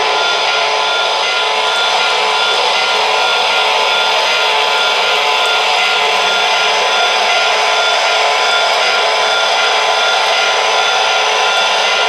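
O-gauge model of the Pennsylvania Railroad S2 steam turbine locomotive and its passenger cars running past on three-rail track. A steady, loud rushing noise with faint steady tones through it.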